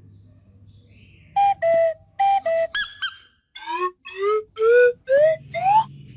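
A whistle sound effect: two short high-then-lower two-note calls, a quick pair of chirps, then five upward-sliding whistles, each starting a little higher than the one before.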